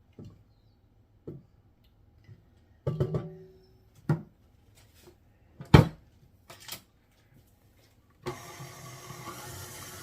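Scattered knocks and clatter against a stand mixer bowl, then about eight seconds in the stand mixer starts and runs steadily, churning cultured cream into butter.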